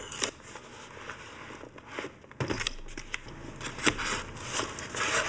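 Cardboard box and its styrofoam packing insert being handled as the box is opened: scattered rustles, scrapes and light knocks, with a louder scrape about halfway through.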